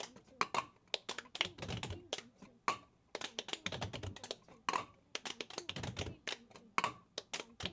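Several people in nitrile gloves tapping and clapping at a lab bench, with plastic bottles knocking on the benchtop: a rapid, uneven patter of sharp taps and knocks.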